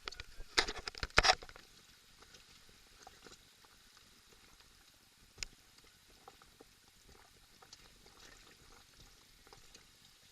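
A quick run of loud splashes in the first second and a half, then faint, even water noise with scattered small ticks and one sharper knock about halfway through.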